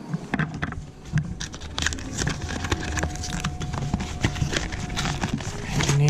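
Handling noise: a USB charging cable and its packaging being handled on a desk, a quick irregular run of small clicks and knocks.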